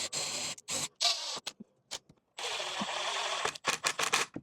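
Choppy workshop assembly sounds: a power drill driving screws in short bursts, with a longer run about two and a half seconds in, mixed with clicks and knocks of wood pieces being joined, broken by abrupt cuts.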